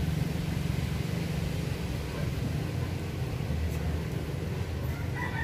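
Steady low rumble, like a motor or vehicle running nearby.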